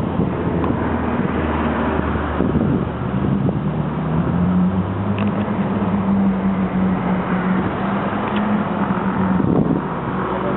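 Ferrari 458 Italia's V8 through an aftermarket Refined Marques exhaust, running steadily at low revs as the car moves slowly in traffic. Its note steps up about three seconds in and holds steady.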